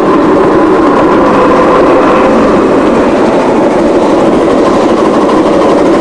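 Ride-on live steam miniature train running along its track, heard from aboard: a loud, steady rumble and clatter of the wheels on the rails.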